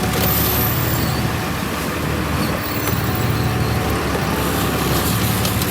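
A sportfishing boat's engine running steadily, a low hum under a broad rushing noise.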